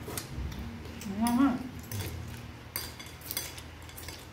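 Metal spoons clinking and scraping against ceramic bowls of fruit and ice, in a string of separate sharp clinks. A short rising vocal sound, louder than the clinks, comes about a second in.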